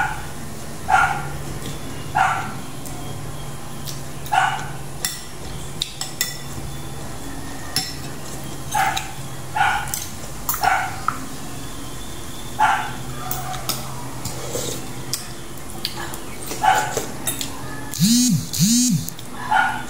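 A dog barking, about a dozen short single barks at uneven intervals, some close together and some several seconds apart.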